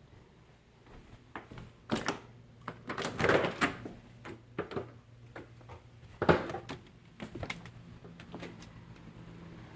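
Doors being opened and shut indoors: a series of knocks and clicks, the sharpest about six seconds in.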